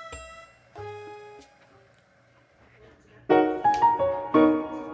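Background piano music: a few held notes, a short lull, then a brisk melody of quick notes starting about three seconds in.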